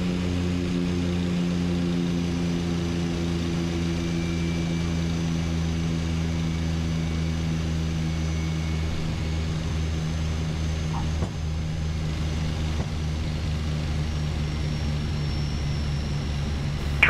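De Havilland DHC-6 Twin Otter's two PT6A turboprop engines and propellers heard from the cockpit during landing. A steady hum of several low tones, whose higher tones fade about halfway through.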